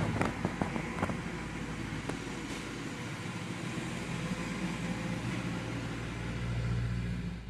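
Peugeot 1.4 16-valve KFU petrol engine starting with a few clicks and then running steadily at idle, swelling slightly near the end before cutting off suddenly: the engine now starts, with the immobilizer removed from its ECU.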